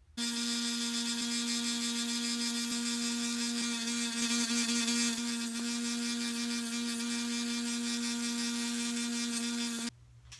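Small benchtop belt sander running with a steady motor whine and sanding hiss as the maple pipe stem is worked against the narrow belt. It starts suddenly just after the start and cuts off shortly before the end.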